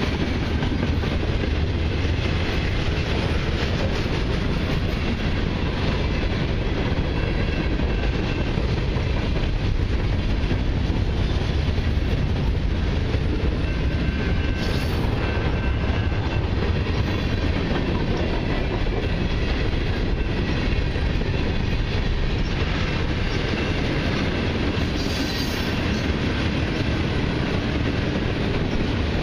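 Freight cars of a mixed freight train rolling past: a steady rumble of steel wheels on rail with clickety-clack over the rail joints.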